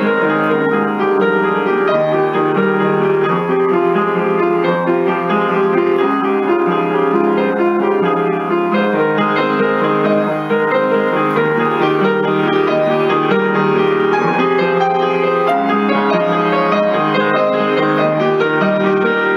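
Piano being played continuously, a steady run of notes with no pauses.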